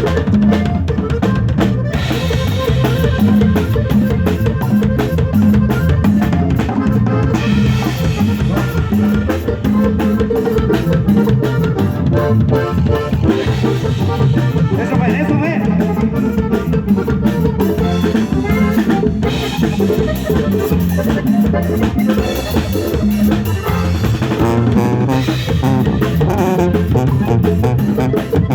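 Live cumbia band playing a medley, with the drum kit to the fore over a steady beat.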